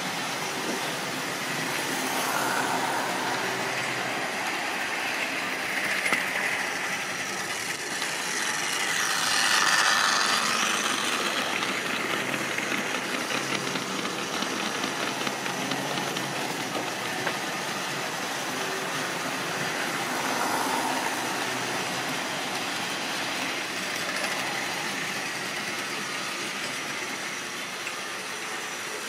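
Triang or Lima model railway trains running on the track: a steady mechanical whirr and rattle that swells several times as trains pass close by, loudest about ten seconds in.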